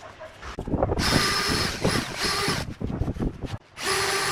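Ozito cordless drill boring a hole into pine, its motor whining at full speed in two runs: a longer one of about a second and a half, then, after a short pause, a second run of about a second near the end.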